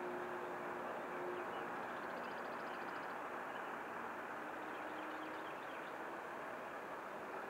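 Twin electric motors and propellers of a Flightline F7F Tigercat RC warbird droning steadily in flight, with a faint propeller tone that slides slightly down in pitch as the plane passes.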